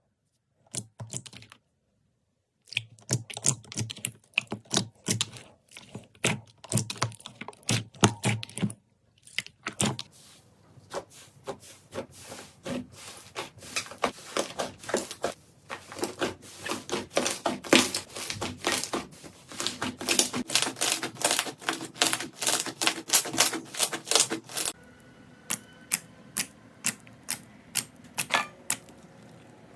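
Slime being squeezed and poked by hand, making rapid crackling clicks and sharp pops, with a few abrupt changes in texture between clips.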